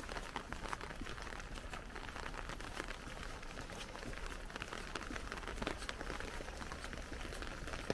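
Rain falling on an umbrella: a dense, steady patter of separate drop hits over an even hiss.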